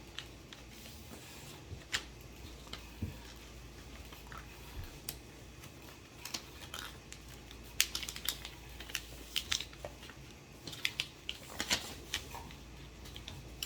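A sheet of paper being handled and folded into a paper airplane: irregular crinkles and sharp crackles as folds are pressed and creased, busier in the second half.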